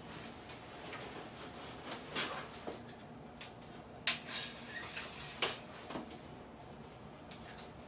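A few sharp clicks and knocks with some rustling as a metal stand with a boom arm is handled and adjusted; the loudest click comes about four seconds in.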